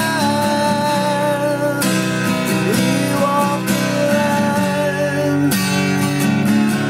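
Acoustic guitar being played: chords strummed a few times and left ringing between strokes.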